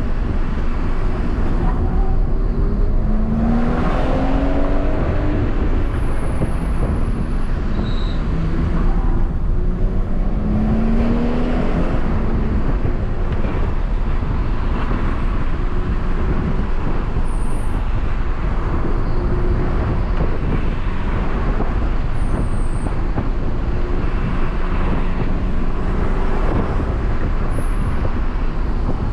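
The cabin sound of a BMW M140i being driven: its 3.0-litre turbocharged straight-six runs over steady road and wind noise. The engine pitch rises twice as it pulls up through the revs, about three seconds in and again around ten seconds.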